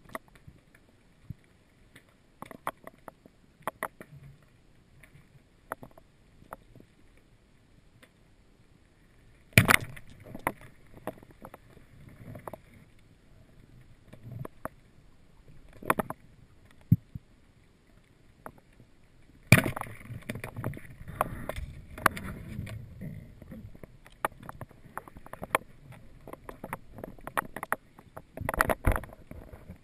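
Underwater noise on a spearfisher's camera: scattered sharp clicks and knocks, with louder rushes of water and bumping about ten seconds in and again from about twenty seconds on.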